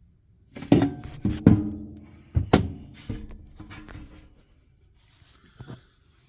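Metal clanks and knocks from a blower assembly being worked out of a sheet-metal HVAC air handler cabinet. A quick run of sharp, ringing strikes comes in the first three seconds, then lighter knocks, and a last small double knock near the end.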